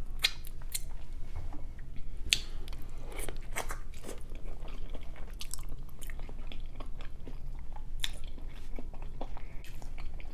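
A person chewing and biting food close to the microphone, with scattered wet smacks and clicks, mukbang-style eating sounds.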